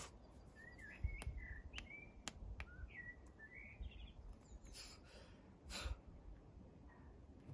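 A bird chirping in a string of short notes that rise and fall, over faint outdoor background noise. A few sharp clicks come in the first half, and two brief rustles come near the end.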